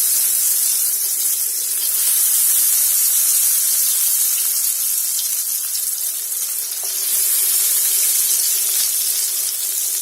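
Marinated chicken pieces deep-frying in very hot oil in a kadhai: a loud, steady sizzle with fine crackling.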